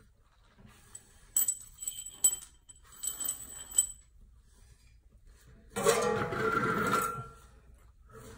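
Metal tools and parts clinking against each other several times with a bright ringing, then a louder scrape of about a second as a metal scissor jack is slid across the concrete floor.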